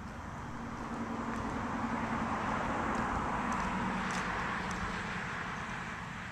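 A car driving past on the road: its tyre and engine noise swells to a peak about three seconds in and then fades, and the engine tone drops in pitch as it goes by.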